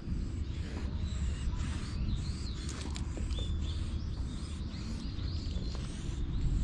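Small birds chirping now and then over a steady low rumble.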